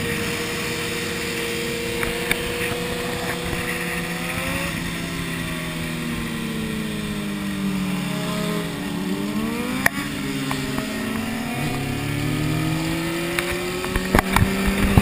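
Several motorcycle engines running slowly and idling together, their pitches drifting up and down as throttles change. A few sharp knocks come near the end.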